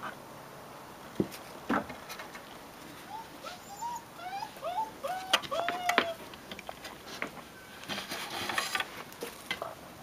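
Leonberger puppies at six weeks: a couple of sharp clacks of pebbles under their paws, then, midway, a quick run of short squeaky whimpers, about three a second, each rising then falling. A patch of rustling and scrabbling over the stones comes near the end.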